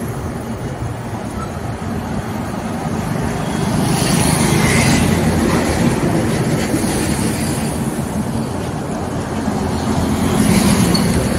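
Diesel tractor engine running as a Massey Ferguson tractor drives along a road, mixed with heavy road traffic of lorries and a motorbike. The rumble swells louder twice, about four seconds in and near the end.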